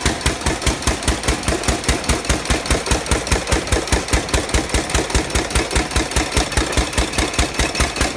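4 hp throttle-governed Ottawa engine running steadily, belt-driving a Curtis air compressor that is pumping up its tank; an even, rapid pulsing beat with no change in speed.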